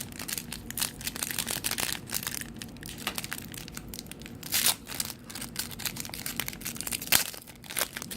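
Trading-card pack wrapper crinkling and tearing as the pack is opened and handled, a steady crackle with two louder crackles around the middle and near the end.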